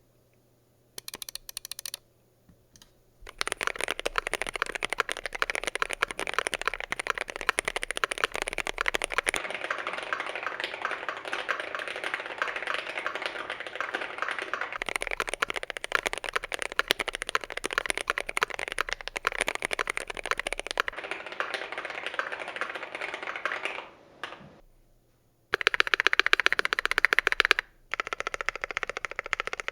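Fast typing on a GMMK Pro mechanical keyboard with Gateron Oil King linear switches, a dense run of key clacks. A short burst about a second in, steady rapid typing for about twenty seconds, a brief pause, then two quick bursts near the end.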